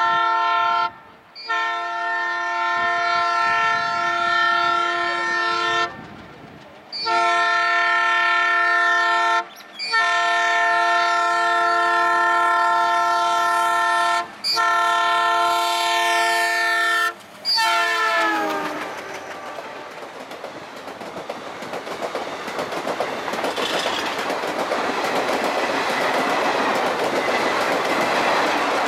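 WDG-3A diesel locomotive's horn sounding a loud chord in a string of long blasts with short breaks, its pitch dropping as the locomotive passes at speed. Then the train's coaches run by with a steady rumble and clatter of wheels on the rails, growing louder toward the end.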